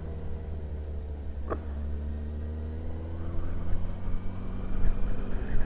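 Honda Hornet 900's inline-four engine running while the motorcycle is ridden. The engine note sags a little, then rises and grows louder over the last couple of seconds as it picks up speed. There is a short sharp click about a second and a half in.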